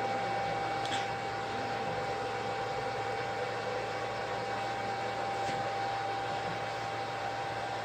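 REGEN-I BK-I300 BGA rework station's hot-air upper heater blowing steadily while it heats a circuit board to desolder a BGA chip: an even airy hiss with a constant mid-pitched whine. A faint tick about a second in.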